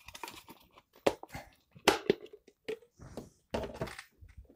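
Hard plastic parts of an oil catch can being handled: several sharp clicks and knocks, the strongest about two seconds in, with brief rustles between them.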